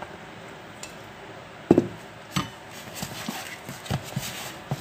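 Knocks and taps of a spatula and cup against a glass mixing bowl as water is stirred into a flour and mashed-sardine batter, with one loud clunk about a third of the way in and lighter taps after.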